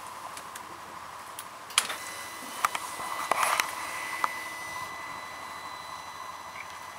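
A few sharp clicks from the Can-Am Spyder's handlebar switches as they are worked with the ignition on, over a steady hiss. A thin, steady high whine comes in about two seconds in. The engine is not yet running.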